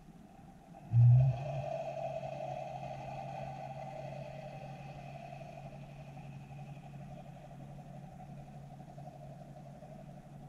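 A sudden loud low thump about a second in, then the steady hum of a boat engine heard underwater, with a whine of higher tones that slowly fades.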